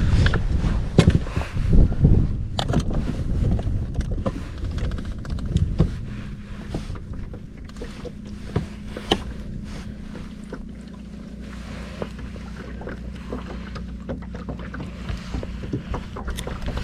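Wind buffeting the microphone, strong for the first six seconds, then easing to leave a steady low hum with scattered light knocks and ticks.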